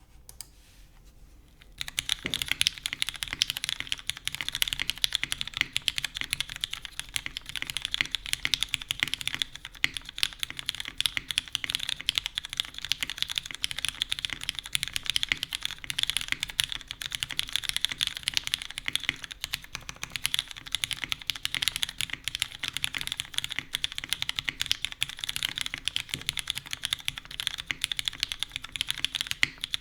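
Fast, continuous typing on a custom mechanical keyboard with lubed and filmed Cherry MX Black linear switches, a full aluminium plate with no foam, and GMK keycaps. The keystrokes start about two seconds in.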